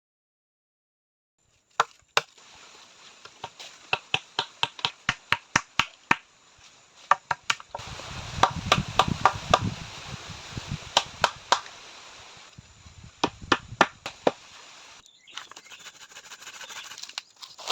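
Silence for about the first two seconds, then a long run of sharp chopping strikes on wood, about two to three a second, in bursts with short pauses and some rustling between them.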